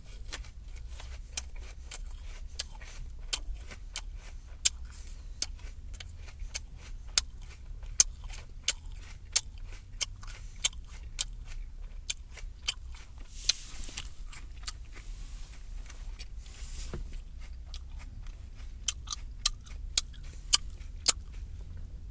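A person chewing an apple loudly with the mouth open, smacking the lips in sharp wet clicks about once or twice a second, with a couple of brief crunchier moments. A steady low rumble runs underneath.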